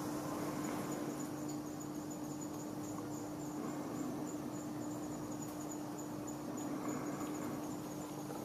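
Insects chirping in a high, even, rapid pulse that carries on steadily, over a steady low hum.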